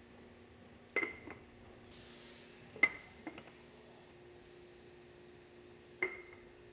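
Hard pots being stacked by hand, clinking against one another four times, each clink ringing briefly, over a steady machine hum. A short hiss about two seconds in.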